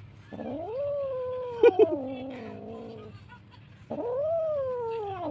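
Kitten meowing twice, two long drawn-out cries that each rise and then slide down, begging for more food after its food has run out. Two quick clicks sound in the middle of the first cry.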